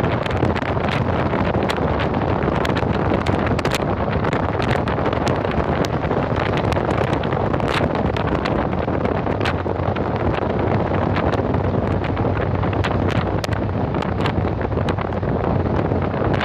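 Road noise inside a moving vehicle's cab: a steady rush of tyres on a wet road over a low engine drone, with scattered sharp ticks.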